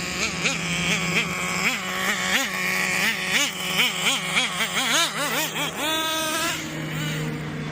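Traxxas 4-Tec nitro RC car's small glow engine revving in quick blips, its pitch rising and falling about twice a second over a steady low drone. About six seconds in it is held high briefly, then drops back to a steady lower note.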